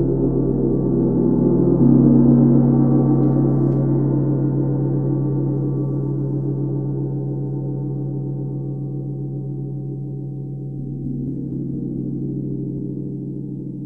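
A 32-inch UFIP brass symphonic tam-tam ringing with a dense cluster of low tones. It swells about two seconds in, fades slowly, and swells again a little near the end as it is struck once more.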